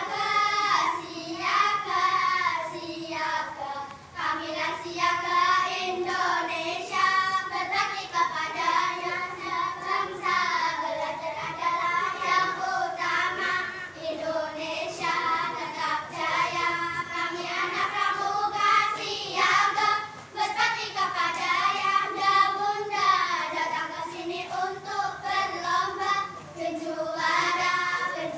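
A group of young children singing a scout yel-yel (cheer song) together in unison, carrying on without a break.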